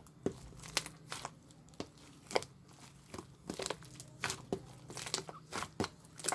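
Slime being kneaded and pressed by hand, giving irregular sticky crackles and pops, several a second.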